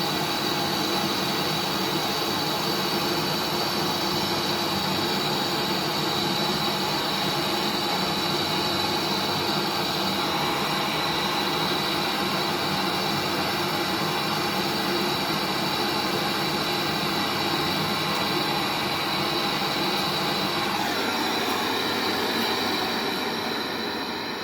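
Gas brazing torch burning with a steady hissing roar while the refrigeration pipes at the filter-drier are heated; it fades out near the end.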